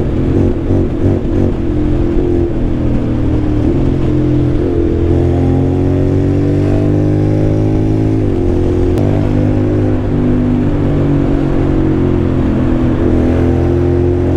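Honda X-ADV 750 parallel-twin engine with an aftermarket dual exhaust, running hard under way. Its pitch climbs steadily as it accelerates, then drops suddenly about eight seconds in and holds steady again.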